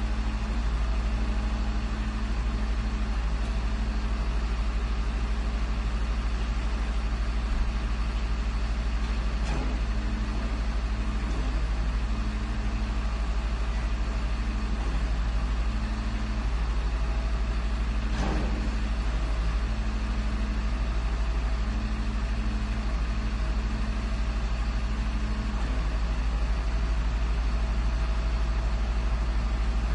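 Garbage truck engine idling steadily with a low hum, with a few faint brief knocks.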